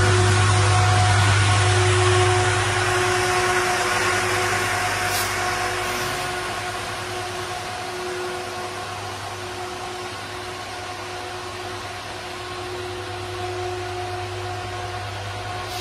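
Metrolink Siemens F125 diesel locomotive running with a steady engine hum, loudest at first and fading over the next few seconds as it moves away along the platform. The train's passing coaches add a steady rumble underneath.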